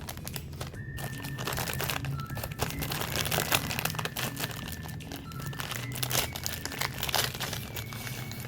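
Snack cake and cookie wrappers crinkling and rustling as they are handled and unwrapped, a dense run of irregular crackles.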